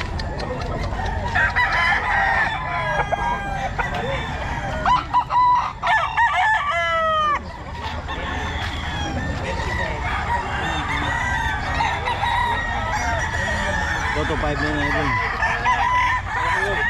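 Gamefowl roosters crowing and clucking, the calls overlapping through the whole stretch. The loudest crow comes about five to seven seconds in. A steady low rumble runs underneath.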